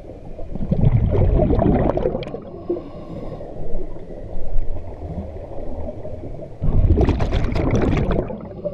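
Scuba regulator breathing heard underwater: two long bubbling exhalations about six seconds apart, with a quieter hiss of an inhalation between them.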